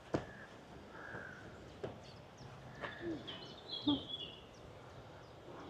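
Birds chirping and calling in short scattered notes, with a few light knocks.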